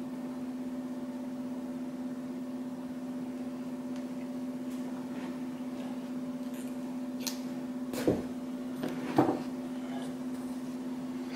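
A steady low hum, with a few light clicks and knocks in the second half from hands handling the needle and cotton cord.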